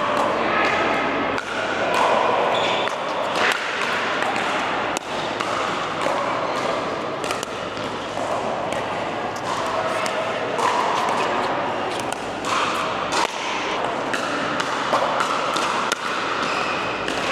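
Pickleball paddles striking a plastic pickleball in rallies: sharp pops at irregular intervals, with people's voices in the background.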